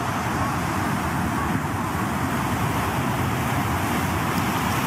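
Floodwater rushing: a steady, even rushing noise.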